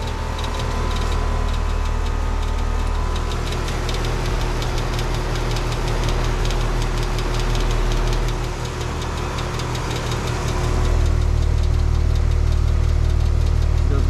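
Outdoor unit of a new 2021 Carrier Comfort Series heat pump running in heat mode: compressor and condenser fan making a steady drone over a low hum. It grows louder over the last few seconds.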